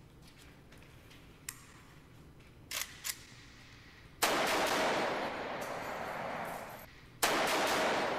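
An AK-47 rifle fired on full automatic at a glass shield, in two long bursts of rapid gunfire. The first starts about four seconds in and lasts a couple of seconds; the second starts about a second later and carries on. A few faint clicks come before the firing.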